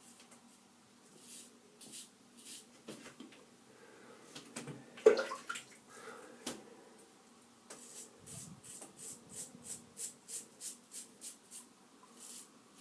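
Hydra X6 3D-printed nylon safety razor scraping through lathered stubble in short strokes, with a brief splash of water about five seconds in; in the second half the strokes come quickly, about three a second.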